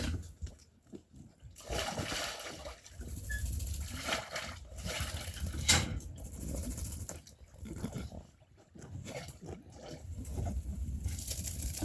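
Sheep moving about in a flock: irregular scuffling and rustling, with a sharp click about six seconds in.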